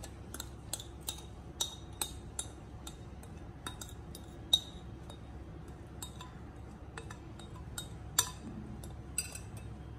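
Steel spoon clinking and scraping against glass mixing bowls while powdered biscuit is scraped out of one bowl into another: a string of light, irregular clinks, the sharpest about four and a half seconds in and again about eight seconds in.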